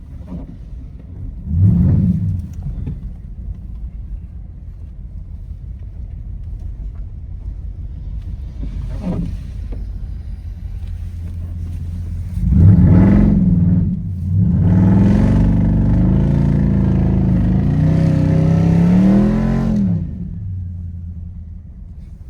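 Car engine running with a low rumble, revving up briefly about two seconds in, then revving hard from about twelve seconds in. It is held high for several seconds before dropping back to idle, typical of a car being driven and slid on a snowy road.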